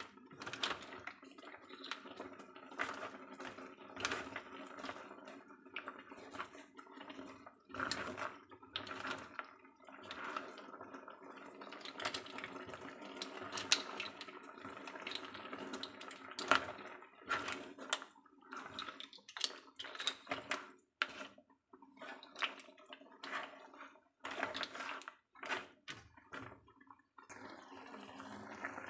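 Mussel shells clattering and scraping against each other and the pan as a wooden spatula stirs them through simmering broth. The stirring stops near the end, leaving the steady bubbling of the simmer.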